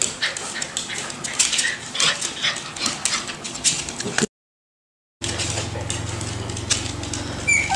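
Miniature Schnauzer puppies scuffling in a playpen: many light clicks and rustles, with brief high whimpers. About four seconds in the sound cuts out for a moment, then comes back with a steady low hum and one short high whimper near the end.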